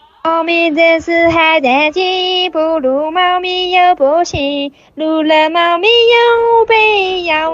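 A high-pitched voice singing a melody in held and gliding notes, with a short break a little past the middle, as part of a background song.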